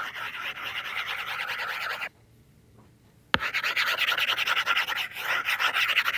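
Stylus tip scrubbing back and forth on a tablet's glass screen while erasing handwriting, a dense scratchy rubbing. It stops about two seconds in, comes back with a sharp tap just after three seconds, and goes on scrubbing.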